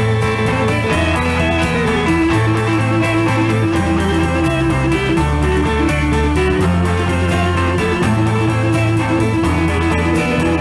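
Instrumental break of a 1960s rock band with no singing: arpeggiated electric guitar over held bass notes that change every second or so, with a Vox Continental combo organ and drums.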